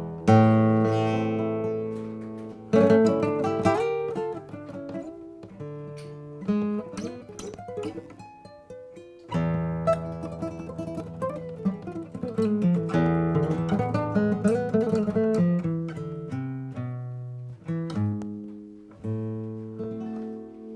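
Solo acoustic guitar played in free time: full chords struck and left to ring out, with quicker runs of single notes between them.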